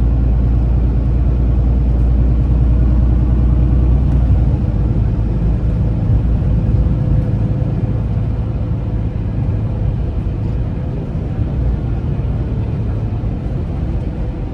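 Steady, loud low rumble of a running engine with a faint constant hum above it, easing slightly after about four seconds.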